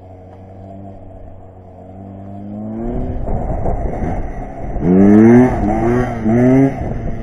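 Beta Xtrainer 300 two-stroke dirt bike engine, distant at first and rising in pitch as it accelerates, then louder, revving hard in three quick rising surges in the last couple of seconds as the rider lifts the front wheel into a wheelie.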